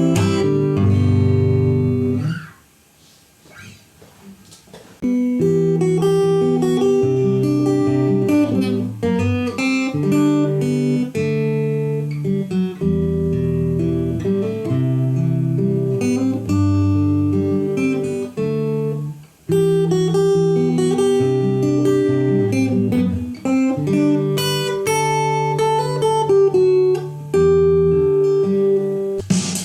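Fender CD-60 electro-acoustic guitar played through an amplified speaker: an instrumental passage of plucked notes and chords. It breaks off for a couple of seconds a little over two seconds in, then resumes.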